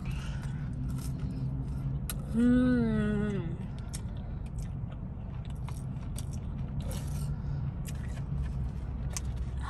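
A short hummed 'mm' of a person eating, falling in pitch, about two and a half seconds in, over the steady low hum of a car cabin. Small chewing clicks and the scrape of a cardboard food box being handled follow toward the end.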